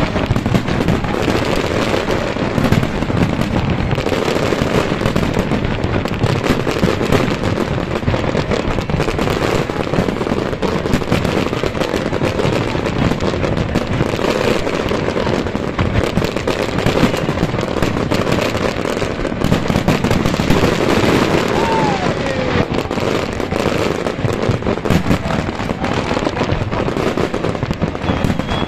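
Fireworks display: a dense, continuous barrage of shells bursting and crackling in rapid succession, with a short falling whistle about two-thirds of the way in.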